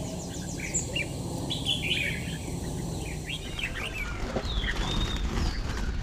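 Caged red-whiskered bulbul singing in short, quick chirping phrases, with a few falling whistled notes in the second half.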